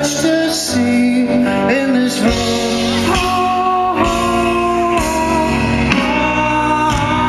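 Live rock band playing with singing: long held vocal notes over guitar and a steady drum beat.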